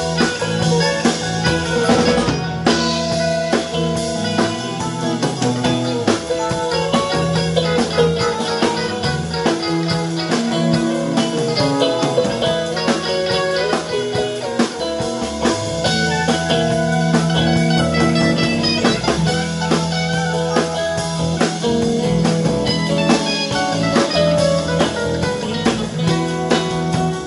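Live rock band playing an instrumental jam: electric guitars, electric bass, drum kit and keyboard, with no singing.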